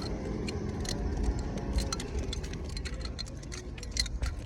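Bus engine running with an uneven low rumble, over scattered light ticks and rattles. The bus has an engine misfire.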